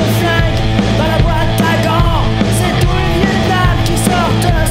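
Loud rock music with a singing voice and a steady drumbeat.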